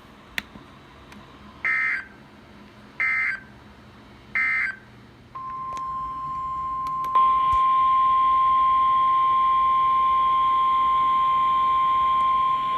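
Emergency Alert System SAME header: three short bursts of warbling data tones. These are followed by the NOAA Weather Radio 1050 Hz warning alarm, one long steady beep that comes in faintly and jumps louder a couple of seconds later, announcing a new weather warning.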